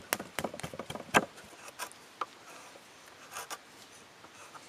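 Axe being batoned into a notch in a fresh-cut wooden ladder rung: a quick run of sharp wooden knocks and cracks in the first second or so, the loudest just over a second in, then a few scattered ones as chips split away.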